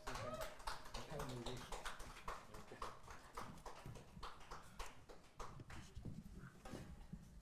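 Faint, irregular clicks and light knocks of musicians handling their instruments and shifting about once the music has stopped.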